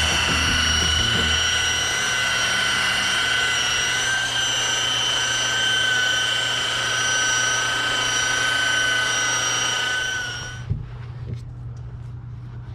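Harbor Freight Drillmaster 7-inch variable-speed rotary polisher running steadily with a high whine while buffing compound into oxidized boat gelcoat. It shuts off about ten and a half seconds in, followed by a single knock.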